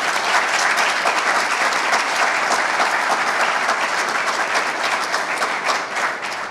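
Audience applauding: many people clapping together, dense and steady, fading away near the end.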